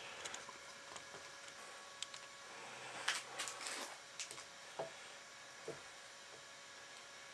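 Quiet workshop handling: scattered light clicks and taps, bunched together about three to four seconds in, as a lathe chuck is turned by hand to indicate a part in with a digital test indicator.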